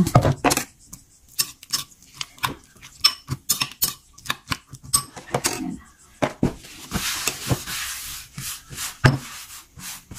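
A metal spoon clinks and scrapes against a ceramic bowl while stirring a chunky vinegar, chili and onion dipping sauce, with many short sharp clicks. A softer stretch of hiss comes past the middle.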